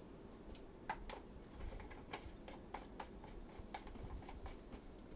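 Light, irregular clicks and taps from spice containers and kitchen utensils being handled.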